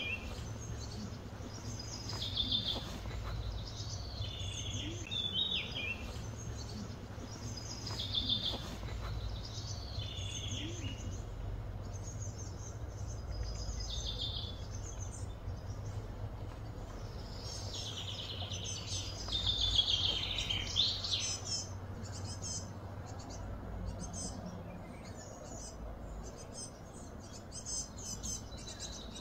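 Wild birds singing and calling in short repeated phrases over a steady low background hum. The loudest phrase comes about two-thirds of the way through. Toward the end a rapid, insect-like chirring sets in.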